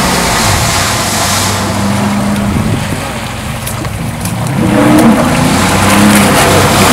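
Motorboat engines running on the water: the outboard motor of an inflatable rescue boat and a Sea-Doo jet ski's engine. Their pitch rises and falls as they are throttled, over a steady rushing noise. The engines are quieter for a moment a little past the middle, then louder again.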